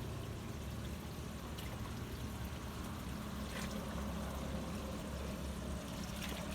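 Water running and pouring steadily, with a few faint clicks.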